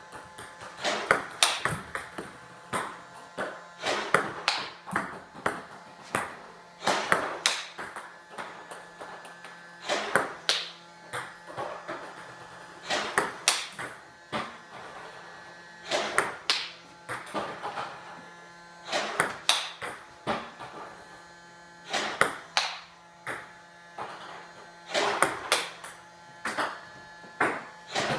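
Table tennis balls struck with a bat on backhand chop and loop strokes, giving sharp clicks, mostly in close pairs or small clusters about every three seconds, with the ball bouncing on a hard surface. A faint steady hum runs underneath.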